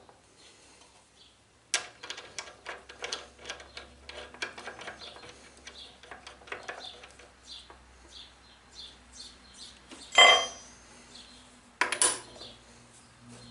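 Steel parts of a lathe tool post and quick-change tool holder clinking and tapping as the holder, washer and nut are fitted by hand. About ten seconds in comes a loud metal clang that rings on briefly, and another sharp clank about two seconds later as a hand tool is put to the nut.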